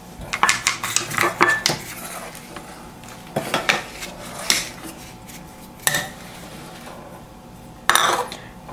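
A stainless steel ladle clinking and scraping against the sides of a stainless steel saucepan as soup is stirred, in irregular bunches of sharp metallic clicks, some ringing briefly.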